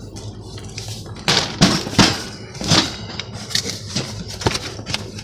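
Handling noise from the bench grinder's packaging: irregular rustles, knocks and scrapes, loudest a little over a second in.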